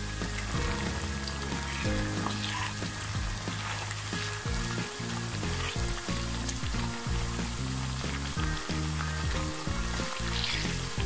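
Thin potato slices deep-frying in hot oil, sizzling steadily, while a slotted spatula stirs through them. Background music with low notes plays underneath.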